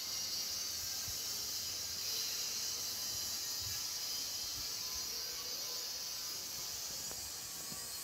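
Steady, high-pitched drone of insects, a dense shrill hiss with no breaks.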